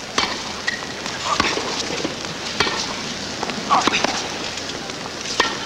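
Tennis rally: racket strikes on the ball come about every second and a quarter, five or six in all, over the steady hiss of the crowd and old broadcast audio.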